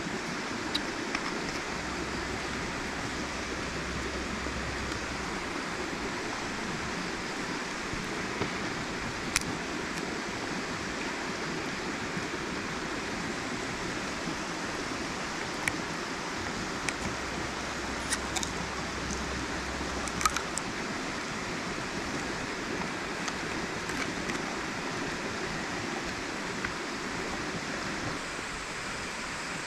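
River water flowing steadily, with a few short clicks scattered through it.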